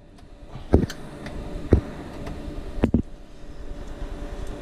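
Three sharp clicks and knocks about a second apart, with a few lighter ticks, from cables and connectors being handled and plugged into the back of a rack server, over the steady hum of running rack equipment.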